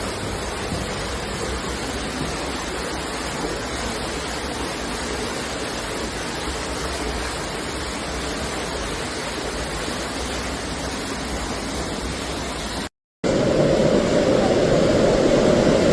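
Steady rushing of water, an even noise without pitch. About 13 seconds in it cuts out for a moment, then comes back louder and deeper.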